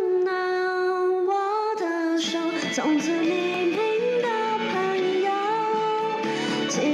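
A woman singing a slow song into a microphone over backing music, holding long notes that slide between pitches.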